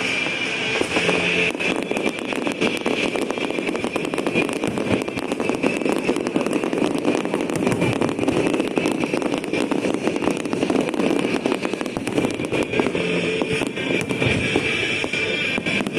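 Fireworks display going off without pause, a dense run of rapid crackling and popping from many shells bursting together.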